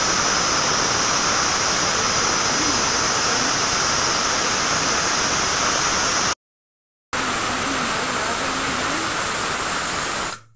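Stovetop pressure cooker venting steam through its weight valve: a loud, steady hiss, the whistle that shows the cooker is up to pressure. It breaks off for under a second about six seconds in, then carries on until just before the end.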